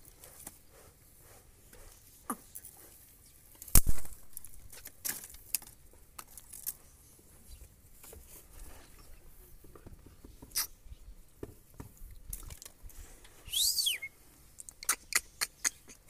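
Light scattered taps and scratches of a rose-ringed parakeet's claws and beak on a hard perch, with one loud knock about four seconds in. Near the end comes a short high chirp that rises and falls, then a quick run of sharp clicks.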